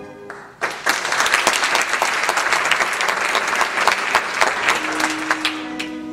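Audience applauding: dense clapping breaks out about half a second in and thins toward the end as a held low note of orchestral music comes in.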